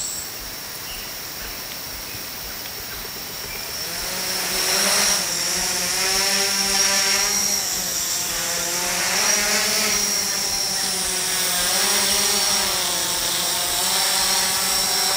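Small quadcopter's electric motors and propellers spinning up and lifting off, growing louder about four seconds in. It then hovers and flies with a whine whose pitch rises and falls as the pilot works the throttle.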